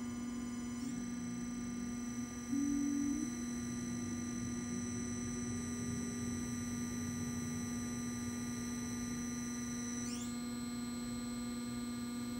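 Electric drive motor and its controller running in reverse, speeding up: a steady electric hum under whining tones that climb slowly with the motor's speed. A louder tone comes in briefly about two and a half seconds in, and a high whine sweeps upward about ten seconds in.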